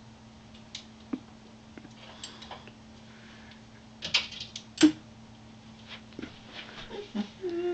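Clothes hangers clicking and sliding on a closet rod as garments are pushed along and rustled, in scattered clicks with a cluster about four seconds in and the loudest sharp clack just before five seconds. A steady low hum runs underneath.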